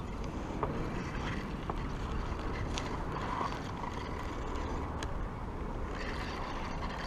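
Steady outdoor background noise: a low, uneven rumble under a hiss, with a few faint ticks scattered through.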